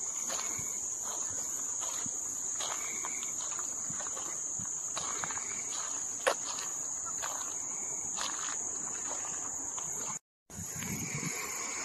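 Insects chirring in a steady, high-pitched drone, with the soft steps of someone walking at an even pace. The sound cuts out for a moment near the end.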